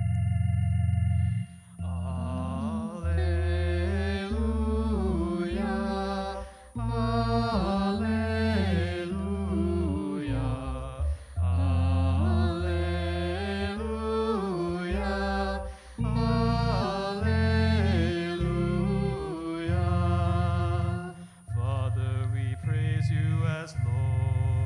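An organ-toned keyboard holds low sustained chords while a voice sings a slow melody over them. The singing comes in about two seconds in.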